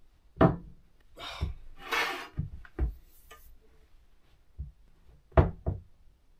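Knocks and thuds of steel conduit and a conduit-bender handle being worked against a wooden floor while the pipe is bent by hand, with a longer rasping scrape between about one and two seconds in. The sharpest knocks come about half a second in and twice close together near the end.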